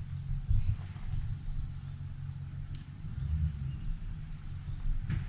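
Crickets chirping in a steady high chorus, under an uneven low rumble.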